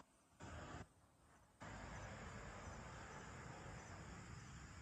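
Faint night ambience with crickets trilling steadily over a low hiss. The sound nearly cuts out twice in the first second and a half, then carries on steadily.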